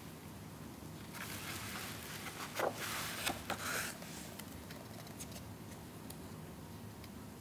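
A page of a softcover photobook being turned by hand: a paper rustle lasting about three seconds, with a few sharp flaps and snaps as the page comes over, then a few faint ticks.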